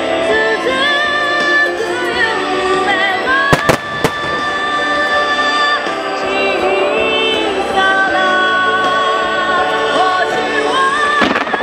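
A song with a wavering sung melody over sustained accompaniment, with fireworks shells bursting over it: a quick cluster of three or four sharp bangs about three and a half seconds in, and another bang near the end.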